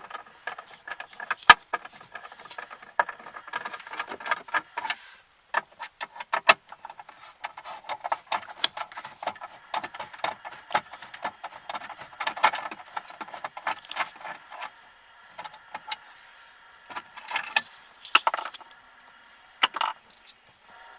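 A small screwdriver whirring in spells while backing out screws from plastic dashboard trim, with many sharp clicks and metallic rattles from the bit, screws and trim.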